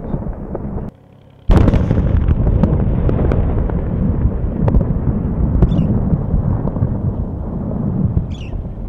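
A large explosion: a sudden loud blast about a second and a half in, then a long low rumble rolling on with scattered crackles.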